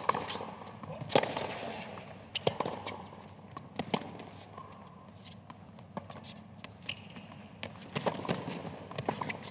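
Tennis rally on a hard court: sharp pops of racket strikes and ball bounces in a back-and-forth, about one every second or so.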